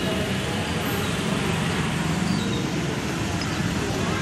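Steady drone of road traffic, mostly motorbikes, with no single event standing out.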